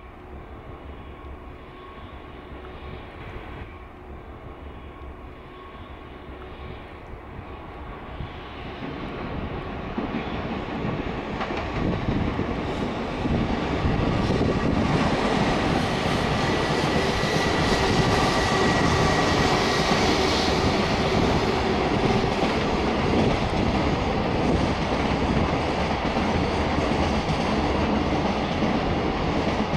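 Container freight train hauled by a JR Freight EF210 electric locomotive, with Koki 100 container wagons, approaching and passing. The rumble and clatter of the wheels grows louder over the first dozen seconds, then holds steady as the container wagons roll by, with a faint steady whine above it.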